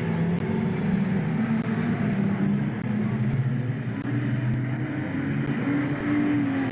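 Engines of several banger racing cars running around the oval track, their notes overlapping. One engine note climbs about six seconds in.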